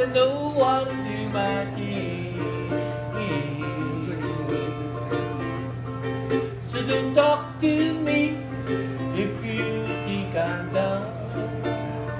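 A ukulele strummed and picked in a live Hawaiian tune, with a voice singing along in places and a steady low hum underneath.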